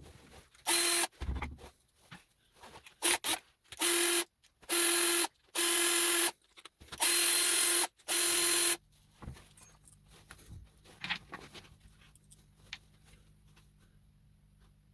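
Power drill with a socket running in short bursts, about seven of them with a steady whine, unscrewing brass nuts from scrap connectors; after that only faint clicks of handling the parts.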